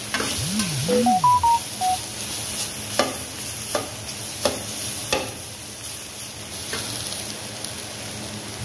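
Steel spatula stirring and scraping sun-dried bitter gourd pieces frying in oil in a kadhai, with steady sizzling and a few sharp scrapes against the pan. Near the start a short electronic jingle plays once: two swooping tones followed by five quick beeps at different pitches.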